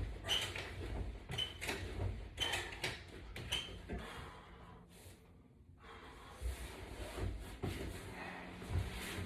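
Exercise straps and latch-bar hardware squeaking and clicking in an even rhythm, about once a second with each crunch repetition, stopping about four seconds in. Low thumps and rustling on the mat follow.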